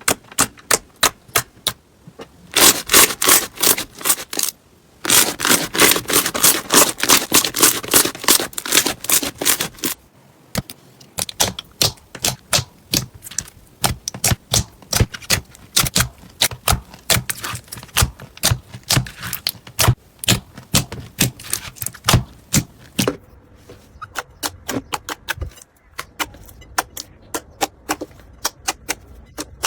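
Slime being handled, giving rapid, crisp clicks and pops, dense enough to crackle in two stretches near the start, then sparser and more irregular.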